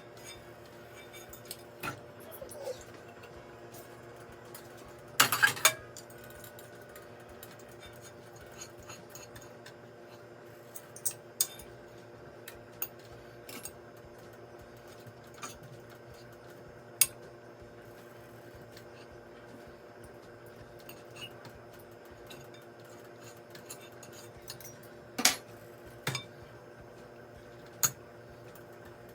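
Metal forks clinking and scraping against a dish in scattered sharp clicks while cooked chicken is shredded off the bone, with the loudest clatter about five seconds in and again near twenty-five seconds. A steady low hum runs underneath.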